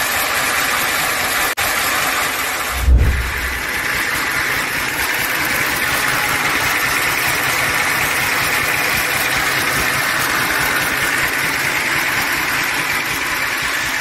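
Soviet V-55 38.9-litre V12 tank diesel running steadily on an engine stand through open exhaust stacks. A brief low thump comes about three seconds in.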